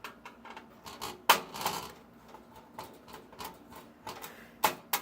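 Irregular clicks and taps of small parts being worked on a computer circuit board while it is unscrewed, with a sharper knock about a second in and another near the end.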